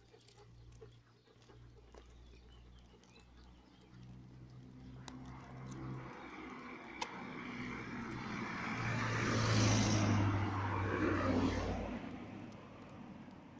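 A car passing on the road, growing louder to a peak about two-thirds of the way through and then fading away.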